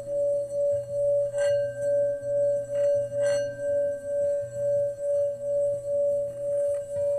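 Singing bowl sounding one steady tone that swells and fades about twice a second, with two short clinks in the first half.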